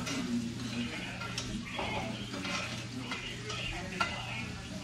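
Steaks sizzling in a frying pan, with a utensil stirring and scraping against the pan, and a sharp click about four seconds in.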